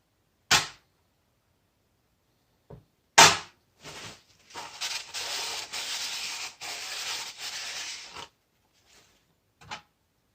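Metal tool working in a fuel tank selector valve housing, as a screwdriver probes for the O-ring. A sharp click and a loud knock are followed by about four seconds of scraping and rubbing with short breaks, then a light click near the end.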